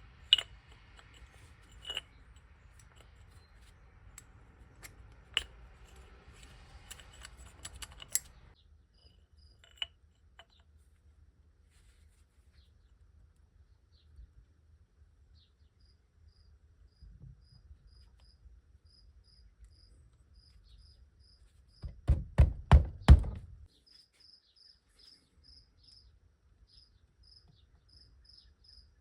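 Scattered clicks and rattles over a low hum for the first several seconds, then a cricket chirping steadily about twice a second. A quick run of about six loud knocks a little past two-thirds of the way through is the loudest sound.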